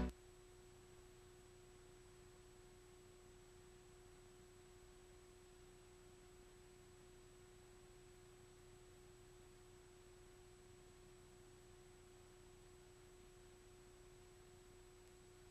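Near silence, with only a faint steady low hum-like tone underneath.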